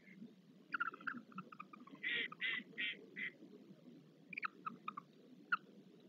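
Barn owl calls: a cluster of short chittering notes about a second in, then four louder, evenly spaced calls about a third of a second apart, and a few more short clicky notes near the end.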